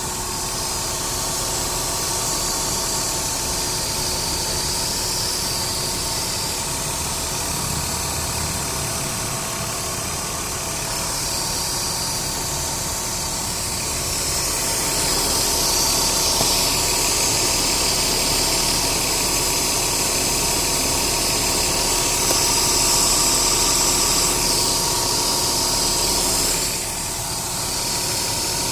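Ford Duratec 3.0 DOHC V6 idling unevenly with the air conditioning on max: the idle misfire, traced to cylinder 2, that is more pronounced with the AC on. It gets louder about halfway through and drops back shortly before the end.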